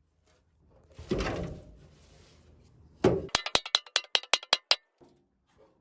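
Hammer blows on a Mazda MX-5's steel front wing while it is being knocked straight: a dull thump about a second in, then one loud strike followed by a quick run of about ten sharp, ringing taps.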